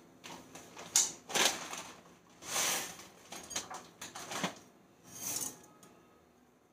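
Maggi noodle cakes being worked apart in a pot of boiling water with a wooden spatula: a handful of separate scraping and splashing noises, with a sharp knock against the pot about a second in.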